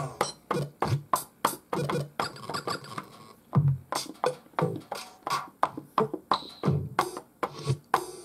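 Roland SP-404A sampler playing factory-loaded drum samples, triggered one after another from its pads: a run of short, sharp drum hits at uneven spacing, many with a heavy low thump, with a brief lull about three seconds in.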